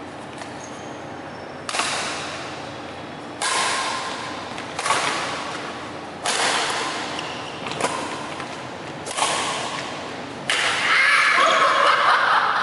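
Badminton rackets striking a shuttlecock back and forth in a rally: about seven sharp smacks roughly a second and a half apart, each ringing on in a large hall. Near the end comes a loud burst of the players' shouting and laughter.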